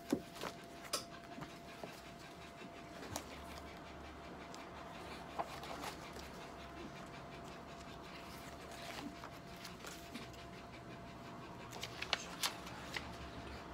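Faint paper handling: pages of a booklet turned and papers shuffled, with a scatter of light clicks and rustles that cluster near the start and again near the end, over a steady thin electrical hum.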